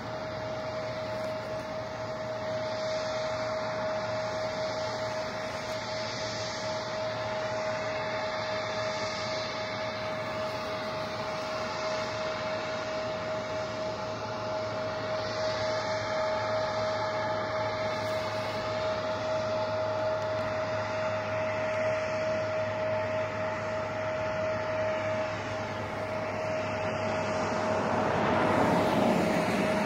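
Jet airliner engines running: a steady high whine over a rushing noise. It grows louder near the end as an Embraer E175 begins its takeoff roll.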